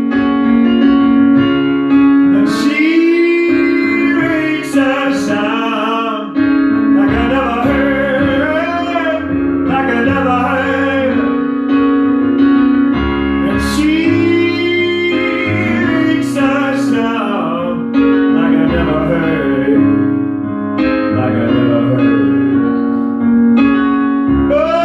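Live pop band music: a singer holding and bending long wordless notes over keyboard and guitar, with a steady sustained keyboard chord underneath.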